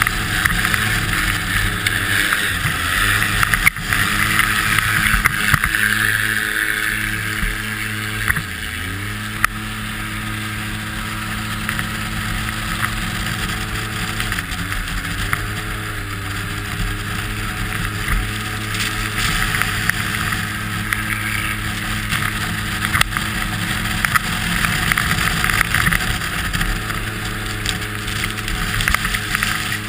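Polaris RZR 800 S side-by-side's twin-cylinder engine running hard at steady revs under a steady rushing hiss of wind and ice spray. The revs dip and pick up again twice, about eight and fourteen seconds in.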